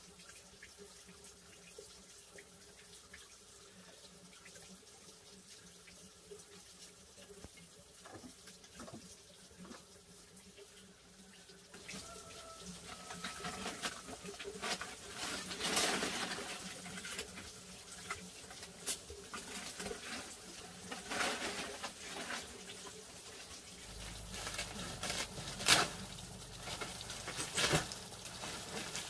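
Water running and splashing, quiet at first and louder from about halfway, with scattered sharp knocks and clatters in the second half.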